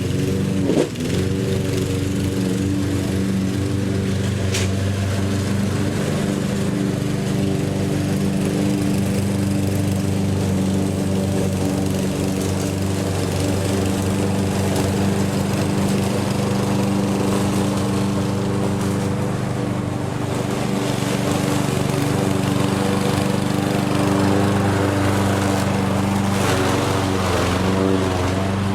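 Lawn mower engine running steadily, its pitch wavering slightly near the end.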